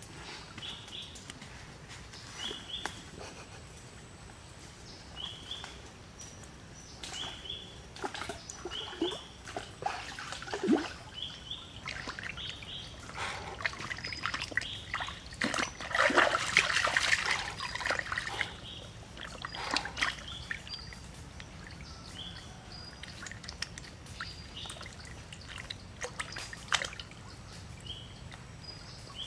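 Water splashing and sloshing as a raw chicken is rinsed by hand in a stream, loudest about halfway through. A bird calls with short repeated chirps throughout.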